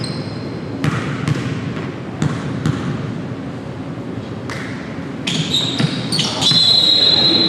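A basketball bouncing irregularly on a gym's hardwood floor, echoing in the large hall. Near the end come high squeals, one held for about a second and louder than the bounces.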